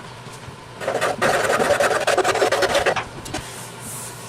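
Rapid, loud rasping of abrasive or cutting work on the wood of a French rolling pin. It starts about a second in and stops after roughly two seconds.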